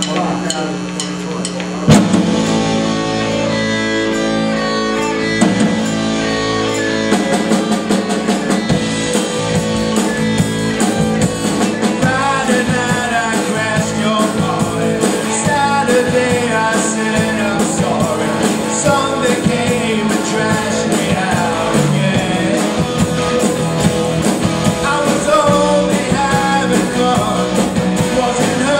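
Rock band playing with electric guitar and drum kit; held chords at first, then the full band comes in on a loud hit about two seconds in and plays on.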